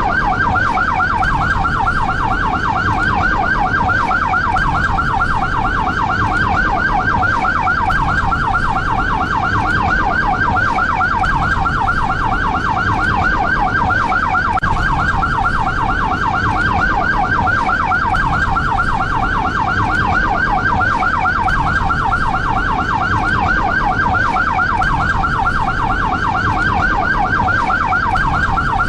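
SAMU ambulance siren in a fast yelp: rapid rising-and-falling sweeps repeating several times a second, steady and loud, over a low rumble.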